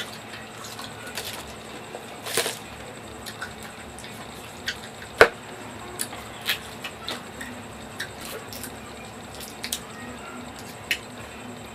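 Close-miked rambutan eating: wet, squishy chewing of the juicy flesh with scattered sharp clicks, the loudest about five seconds in.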